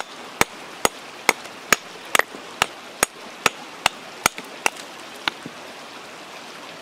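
Hammer striking a hand-held building stone again and again, about two to three sharp knocks a second, chipping pieces off to dress it to shape. The blows stop about five seconds in.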